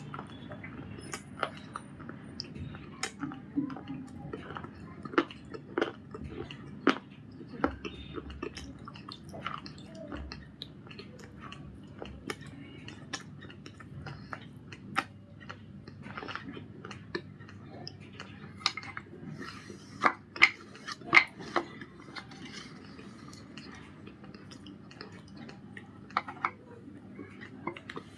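Close-up crunching and chewing of a hard Punjab biscuit coated in white khadi paste: irregular sharp cracks and snaps over a steady moist chewing sound, loudest for a few bites about two-thirds of the way through.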